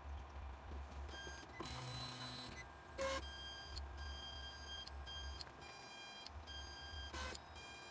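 Desktop 3D printer's stepper motors whining in short runs of steady high tones that change pitch with each move of the head and bed, over a low hum. Two brief clicks, about three seconds in and again near the end.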